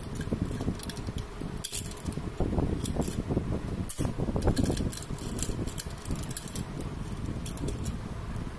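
Small metallic clicks and clinks of hand tools and linkage parts being worked inside an opened rotary diesel injection pump's governor housing, over a steady low background rumble.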